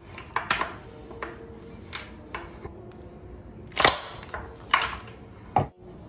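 Socket wrench with an 8mm socket turning out the fasteners on a metal electric-scooter battery pack: a string of irregular metal clicks and clacks, loudest about four seconds in.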